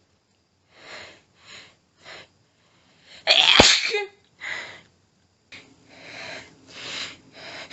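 A woman sneezing once, sharp and explosive, about three seconds in, between short panting breaths. Near the end her breaths come faster and louder, hitching as the next sneeze builds.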